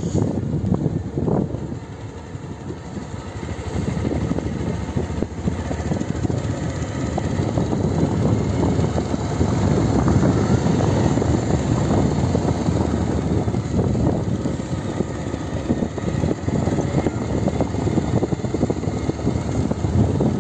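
Motorcycle riding along at road speed, its engine mixed with wind buffeting on the microphone. The sound dips about two seconds in and then builds back up.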